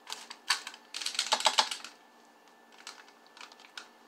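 Light clicks and rustles from hands handling things at a kitchen counter: a quick run of small taps and crinkles about a second in, then a few fainter ticks.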